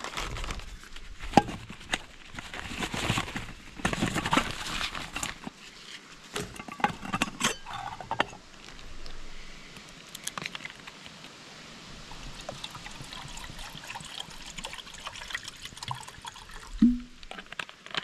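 Water being poured for cooking, in several loud bursts over the first eight seconds, then fainter, with scattered clinks of metal cookware and a single knock near the end.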